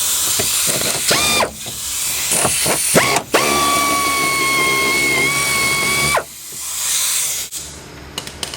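Power ratchet spinning off the 14 mm strut top-mount nuts: a short burst about a second in, then a run of about three seconds that rises in pitch and holds a steady whine before stopping.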